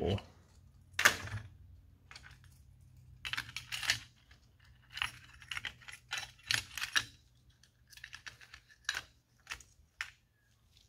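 Metal hooks and split rings on hand-made resin stick-bait lures jangling and clicking as the lures are handled and set on and lifted off a digital scale, in irregular clusters of clicks.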